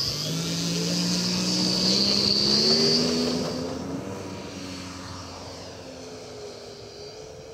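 Radio-controlled ESM Beaver (DHC-2 Beaver scale model) airplane powering up for its takeoff run and climbing out. Its propeller note rises in pitch and grows louder for about three seconds, then fades as the plane flies off.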